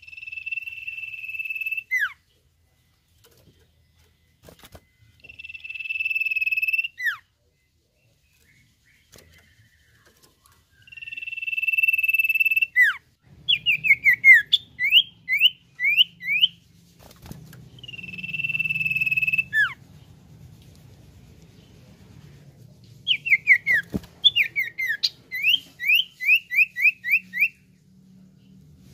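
Common iora (cipoh) singing its whistled song: four long, steady, high whistles of about two seconds each, every one ending in a quick downward slur. Twice, between the whistles, it gives a fast run of short sweeping notes. A faint low hum runs underneath from about halfway.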